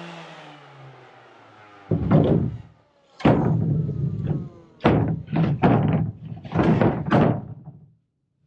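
Power grinder on fibreglass. Its motor winds down in pitch and fades over the first second or so. From about two seconds in, it makes a series of about eight short, harsh grinding bursts, each starting suddenly and dying away.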